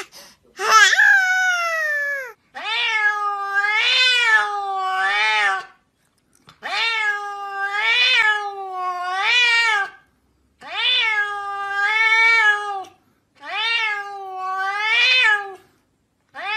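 Domestic cat meowing in long, wavering calls, each rising and falling in pitch, about a dozen in all, coming in runs of two or three with short pauses between.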